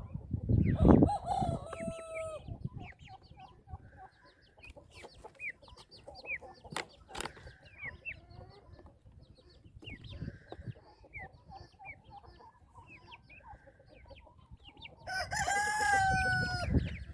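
A rooster crows twice: a short crow about a second in and a longer, louder one near the end. In between come many short, high peeping chirps from young fowl.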